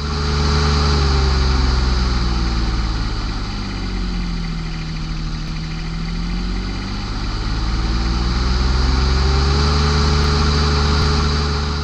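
An engine running steadily. Its pitch sinks lower about four seconds in and climbs back to where it was by about nine seconds.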